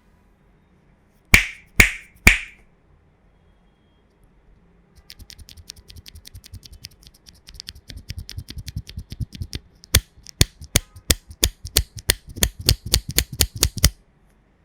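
Three sharp snaps just over a second in, then typing on a plateless mechanical keyboard with Cherry Hyperglide Black linear switches: a fast run of light keystrokes from about five seconds, then slower, louder single key presses about three a second near the end.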